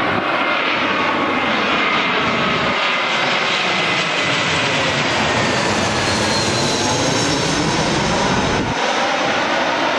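Jet engines of an Airbus A319 airliner on approach to land, passing low overhead: a loud, steady engine noise with whining tones that slide down in pitch as it goes by.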